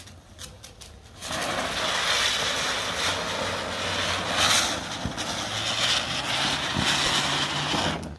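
Large ground spinner firework (chakri) lit and spinning: a few faint crackles, then a loud, steady hiss of spraying sparks starting about a second in and stopping suddenly just before the end.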